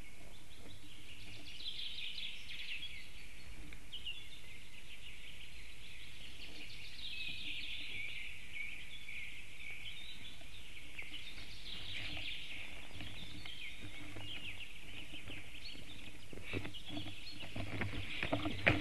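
Small forest birds singing in a steady, busy chorus. Near the end come a run of clicks and rustles as a second black stork lands on the stick nest.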